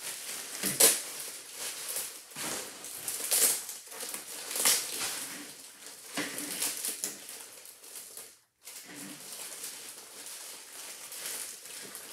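Plastic mailer bags and clear poly garment bags crinkling and rustling as they are handled and opened, in irregular bursts, with a brief silent gap about two-thirds of the way through.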